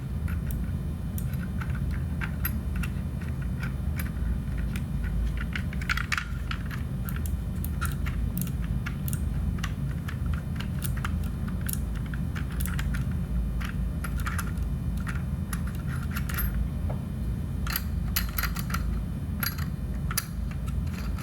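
Scattered small metallic clicks and clinks as a lock cylinder and its back piece are handled and fitted into a Detex EAX-300 exit alarm housing, over a steady low hum.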